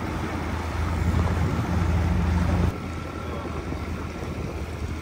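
Outboard motor of an inflatable boat running steadily, a low hum under the rush of wind and water. A little past halfway the sound drops suddenly to a quieter wash of wind and water with the motor fainter.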